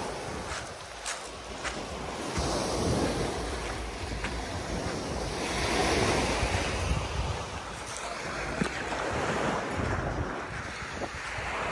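Small waves breaking and washing up a pebble beach, swelling twice, with wind buffeting the microphone.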